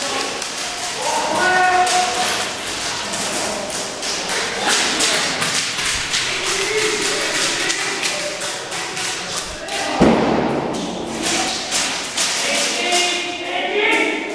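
A rapid, irregular series of sharp taps and thuds, with a louder thud about ten seconds in, and voices at times between them.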